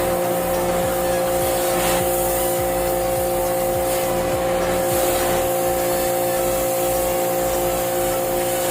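A steady electric motor running with a constant whine and a hiss, holding an even pitch throughout.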